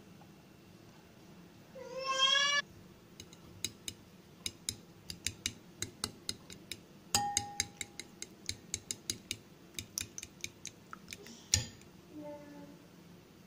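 A cat meows once, a loud rising call about two seconds in, and gives a fainter, lower call near the end. In between, a fork clinks rapidly against a ceramic bowl as eggs are beaten, with one strike that rings briefly.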